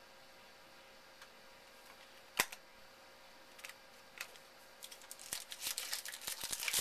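Foil trading-card pack wrapper being handled and torn open: a sharp click a little over two seconds in, a few scattered ticks, then dense crinkling and tearing from about five seconds in.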